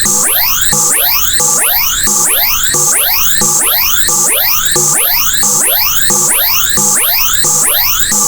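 Synthesized sawtooth-wave tone sweeping upward in pitch again and again, about twice a second, in a steady repeating loop.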